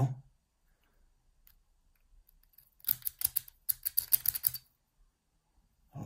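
A thin metal tool scraping and picking leftover metal out of the sawn cutaway slot in a euro cylinder lock: two short bursts of rapid scratchy clicks, about three and four seconds in.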